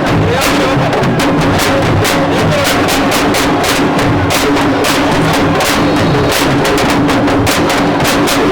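Fast, dense hand drumming with many sharp strokes in the manner of Senegalese sabar drums, over a steady held tone.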